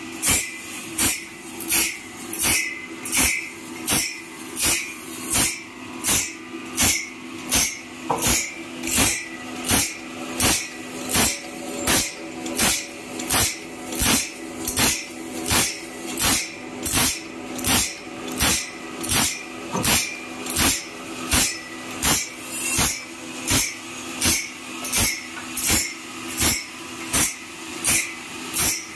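Automatic bandsaw blade sharpener grinding a sawmill band blade tooth by tooth: an abrasive wheel strikes each tooth with a short, harsh rasp, a little under two strokes a second in an even rhythm, over the steady hum of the motor.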